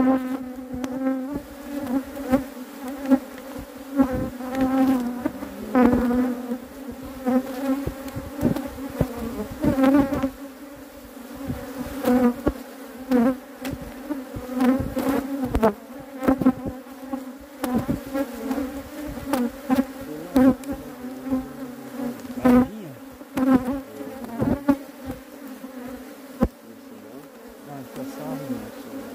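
Honeybees buzzing in a steady, dense hum around an opened hive during a frame inspection, with frequent short knocks and clicks over it.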